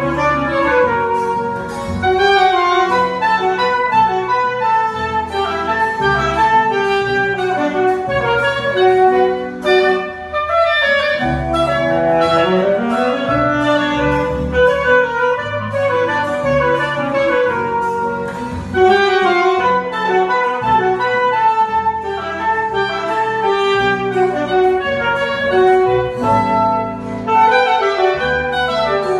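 Small ensemble of saxophone, clarinet, double bass and a strummed guitar-like string instrument playing a Colombian pasillo, the saxophone and clarinet carrying the melody over the bass and strummed chords.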